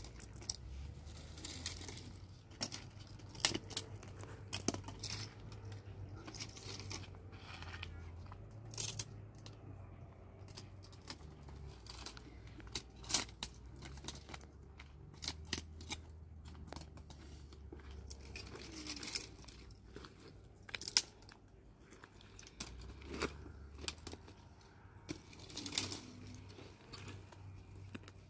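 Irregular crackles and snaps of dry twigs and brush being handled and broken, a dozen or so sharp ones scattered through, over a low steady rumble.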